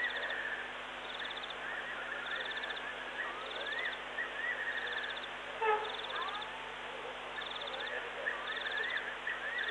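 Night-time wild animal calls: a short, high, pulsed trill repeating about once a second, over whistled calls that glide up and down. One louder, sudden call or knock comes about halfway through.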